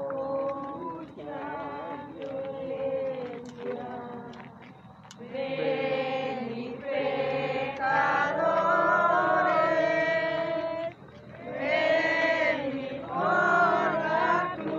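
Voices singing a religious hymn together, with long wavering held notes, growing louder and fuller about five seconds in.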